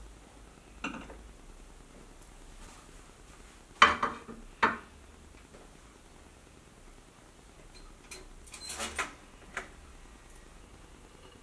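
Crockery knocking and clattering on a kitchen worktop. There is a light knock about a second in, the loudest clatter around four seconds in with a second knock just after it, then a run of small clinks and knocks near the end.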